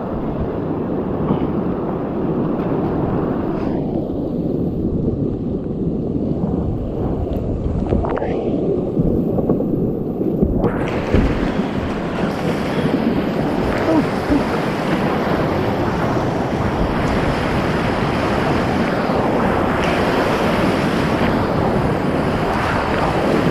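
Whitewater rapids rushing loudly around a kayak, picked up close by an action camera's microphone. About eleven seconds in, the rush turns brighter and hissier.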